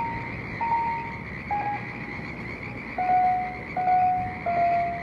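A run of steady beeping tones, each about half a second long and coming roughly once a second, stepping down to a lower pitch about three seconds in, over a constant hiss.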